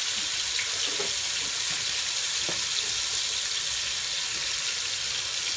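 Seasoned pork steaks searing in hot oil in a large skillet, giving a steady, even sizzle, with a few faint clicks of kitchen tongs.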